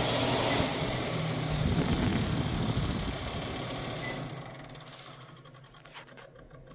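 Whirlpool range hood exhaust fan running with a loud rushing, rubbing noise, which the technician traces to the fan touching its case. The sound dies away over a couple of seconds past the middle.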